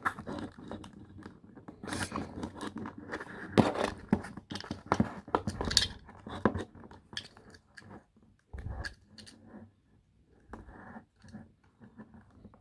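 Plastic toy packaging crackling and scraping, with sharp irregular clicks, as the ties holding an action figure in its tray are cut and the figure is worked free.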